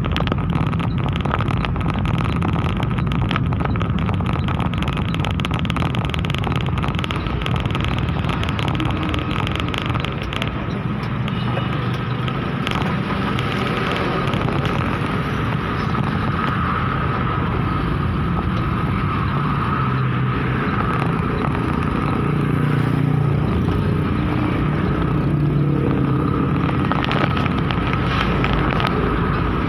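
Suzuki New Carry pickup truck on the move: steady engine and road noise while driving.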